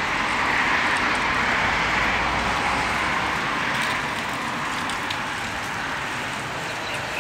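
Strong sandstorm wind rushing through palm fronds and trees, a steady hiss that eases a little after about four seconds.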